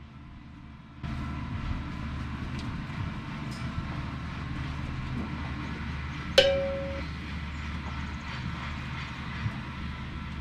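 A motor vehicle running steadily, louder from about a second in. About six and a half seconds in comes a single sharp metallic clang that rings briefly.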